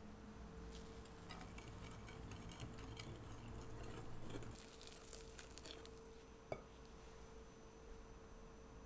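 Metal wire whisk stirring a dry flour mixture in a glass bowl: faint swishing with light scattered ticks of metal against glass, and one sharper click about six and a half seconds in.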